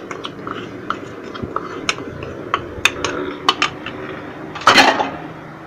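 Scattered sharp clinks of a small ceramic bowl knocked against a stainless steel stockpot as paste is emptied from it, with one louder, short clattering scrape near the end.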